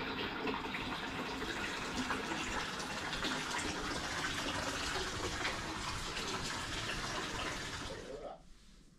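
Hot water running from a tap into a jacuzzi tub, a steady rush that cuts off about eight seconds in.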